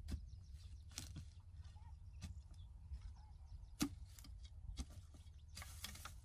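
Digging tool striking and scraping soil at a hole, a few separate knocks with the sharpest near the middle and a short scrape near the end, over a steady low rumble.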